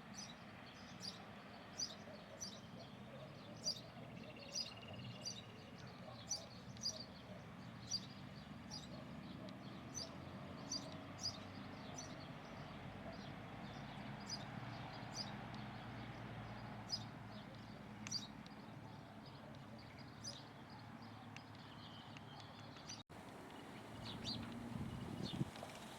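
A bird chirping over and over, short sharp high chirps about one every half second, over a low steady outdoor background.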